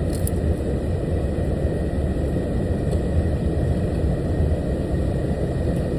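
Truck engine idling, a steady low rumble heard inside the cab.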